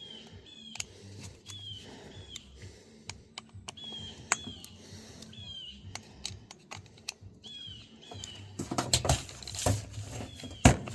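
Small metal clicks and taps of a driver and tools on an RC truck's mount screws as they are snugged up, with louder handling clatter near the end. Repeated short, high falling chirps sound every second or so throughout.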